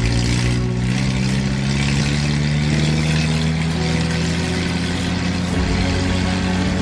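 Steady engine-like drone whose pitch rises slowly over the first two or three seconds and then holds, an added sound effect or soundtrack rather than a real engine.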